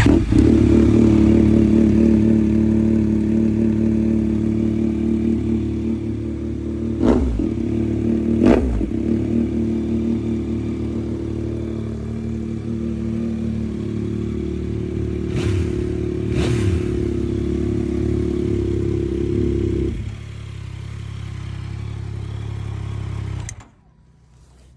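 Yamaha MT-09 SP's inline three-cylinder engine idling through its exhaust, with quick throttle blips about seven and eight and a half seconds in and again about fifteen and sixteen seconds in. About twenty seconds in the idle turns quieter and different in tone, and it cuts off shortly before the end.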